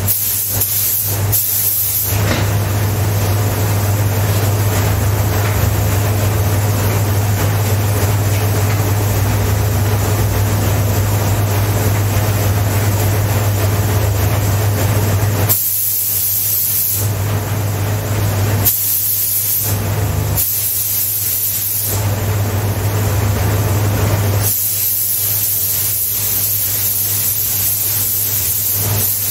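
Compressed-air paint spray gun hissing as it sprays paint, in long continuous passes; after about fifteen seconds the trigger is released and pulled again in shorter bursts, and the spraying stops near the end. A steady low hum runs underneath.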